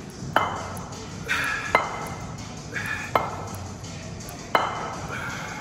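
Four sharp metallic clinks with a short ring, evenly spaced about a second and a half apart, with brief higher tones between them.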